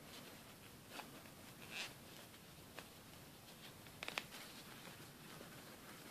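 Near silence, with a few faint rustles and light ticks from hands handling a crocheted yarn piece.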